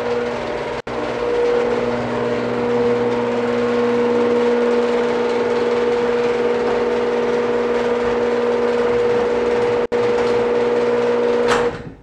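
Genie GX9000 screw-drive garage door opener running as it lowers a sectional garage door: a loud, steady motor hum with a constant tone. It cuts off near the end with a short knock as the door reaches the floor.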